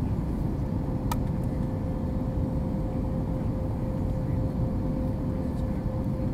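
Steady airliner cabin noise on the approach: a low rumble of engines and rushing air, with a steady hum that comes in about half a second in. A single short click about a second in.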